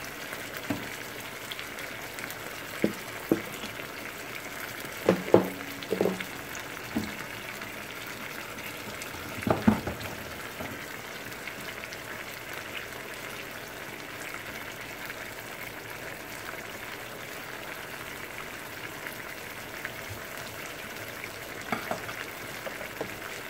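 Tinned mackerel in a tomato, onion and pepper sauce sizzling and bubbling in a skillet on the stove, a steady hiss. A few short taps break in, several in the first ten seconds and once near the end.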